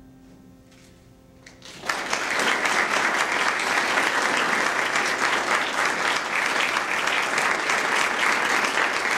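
The piano's last chord fades into a short hush. About two seconds in, audience applause breaks out and carries on steadily.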